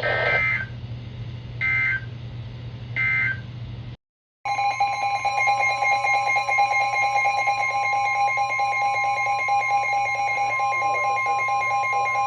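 NOAA Weather Radio Emergency Alert System signal: three short warbling SAME header data bursts about a second and a half apart, a brief gap, then a long steady alert tone of several pitches together announcing a new warning.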